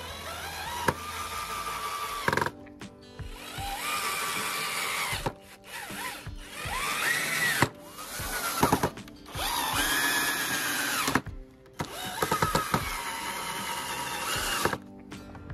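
An electric power tool's motor running in about five bursts of one to three seconds, its pitch rising as it spins up and falling as it stops each time, with music underneath.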